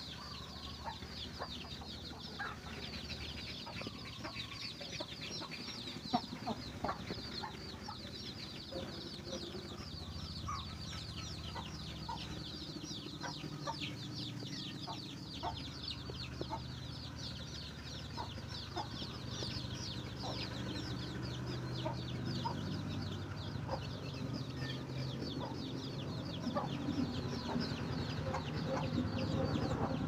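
Chicks peeping continuously, a dense stream of short, high, falling cheeps, with a hen clucking now and then beneath them as she scratches up food for the brood.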